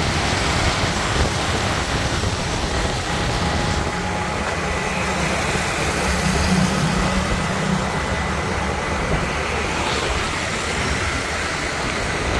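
Steady road traffic noise: vehicles running, with a low engine hum underneath.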